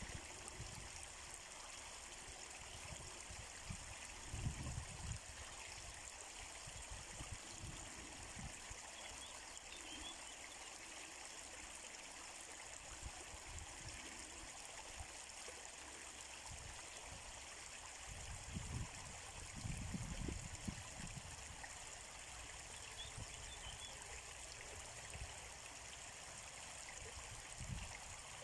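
Running water, a river and a shallow trickle over stones, making a steady faint rushing. A few brief low rumbles come about four seconds in, again around nineteen to twenty-one seconds, and once near the end.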